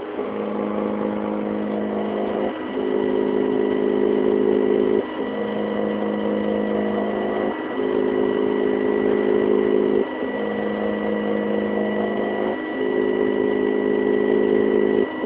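Hobby 3D printer laying down the interface layer of a raft: its stepper motors give off steady whining tones that switch between two pitches every two and a half seconds or so, each switch marking the head reversing at the end of a line.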